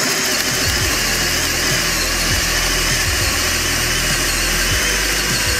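Metabo SB 18 LTX BL I cordless hammer drill running steadily under load, boring a 40 mm auger bit into soft wood.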